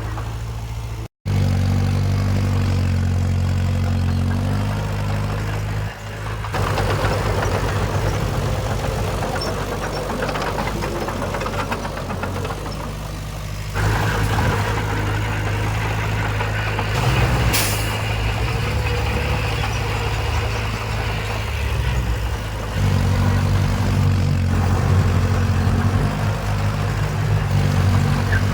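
Heavy diesel engines of earthmoving machinery, a bulldozer and dump trucks, running steadily, the sound switching abruptly several times, with a brief dropout about a second in. A short hiss, like an air brake, cuts through about two-thirds of the way through.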